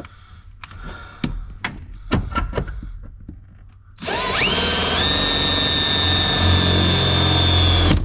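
A few knocks and clicks from handling tools. Then, about four seconds in, a handheld electric drill spins up with a rising whine and runs at a steady high speed, drilling into the truck's firewall, until it stops suddenly.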